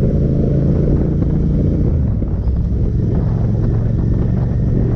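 Royal Enfield Interceptor 650's parallel-twin engine running at a steady cruise, heard from the rider's position, with wind rumble on the microphone.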